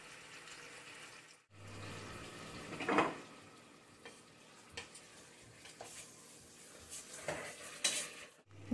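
Lamb pieces sizzling as they brown in a stainless steel pot, stirred with a spoon that scrapes and knocks against the pot. The loudest scrape comes about three seconds in. The sound cuts out briefly about a second and a half in.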